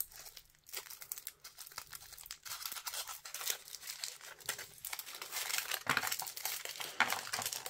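Thin foil wrapper being peeled and crinkled off a chocolate egg by hand: a continuous crackly rustle of small crinkles that grows busier after a couple of seconds.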